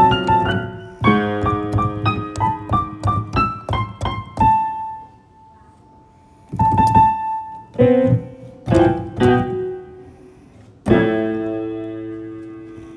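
Solo piano playing a slow melody: a run of quick notes, a long held note, then a few notes and a final chord left ringing.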